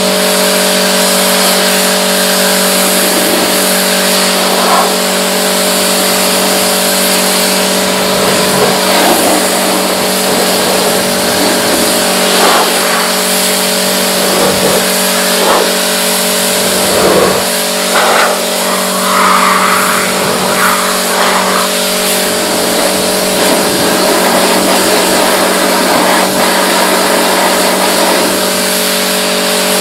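Pressure washer running steadily: a constant motor hum under the hiss of the water spray, with irregular knocks and swishes of the spray on the car through the middle.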